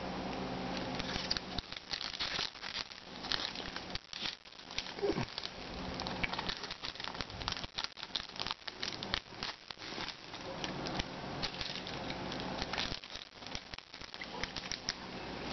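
Foil trading-card pack wrappers crinkling and crackling in the hands, with irregular sharp crackles as a pack is picked up and its wrapper is pulled open near the end.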